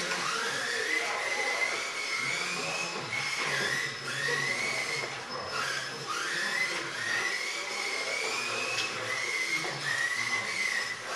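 Small electric motors of 1/28-scale RC cars whining on the track, the pitch rising for a second or two as a car accelerates, falling back and rising again several times.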